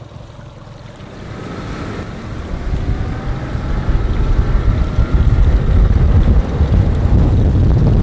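Mercury outboard motor throttling up as the boat accelerates, its whine rising, with water rushing along the hull and wind on the microphone; the sound builds over the first few seconds and then stays loud.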